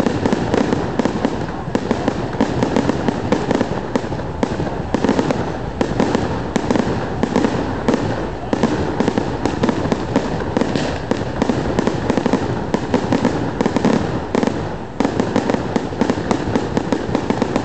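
Fireworks display: a dense, continuous barrage of sharp bangs and crackles, several reports a second, with only a brief dip in intensity partway through.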